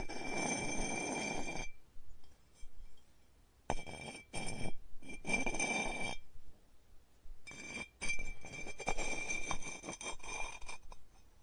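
Clay being worked on a spinning pottery wheel: a rough rubbing and scraping with a steady high whine on top. It comes in several stretches of a second or two, broken by short pauses.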